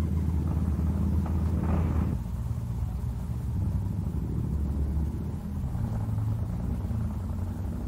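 Motorcycle engine running steadily with a deep sound, with a short rise in pitch about one and a half seconds in.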